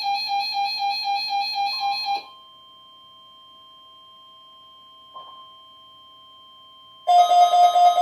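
Electronic emergency alert tones of a weekly weather-radio alarm test. A loud pulsing tone, about four pulses a second, cuts off about two seconds in. Faint steady tones follow. About seven seconds in, a loud pulsing tone starts again.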